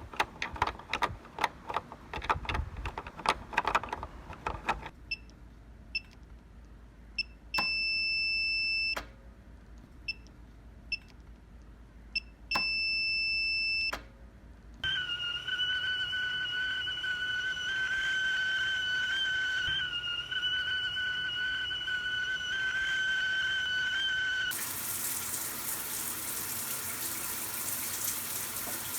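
A run of everyday sounds in turn: quick clicking like typing on a keyboard, then short electronic beeps with two longer beeps, then a steady high whistle held for about ten seconds, then running water from a tap near the end.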